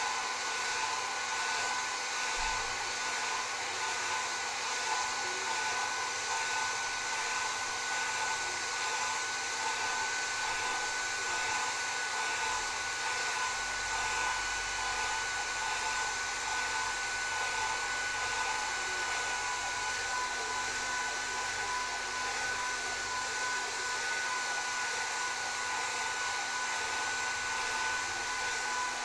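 Hand-held hair dryer blowing steadily: an even rush of air with a thin, steady whine from the motor.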